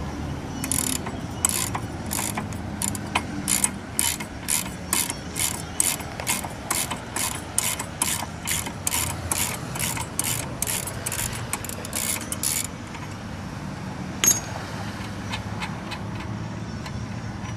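Socket ratchet wrench clicking in a steady run, about two to three clicks a second, as the propeller nut is backed off the shaft. The clicking stops about two-thirds of the way in, and one more click follows a little later.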